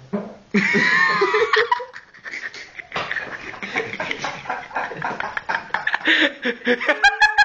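People laughing loudly: a high-pitched, wavering squeal of laughter about half a second in, then a long run of quick, repeated ha-ha pulses.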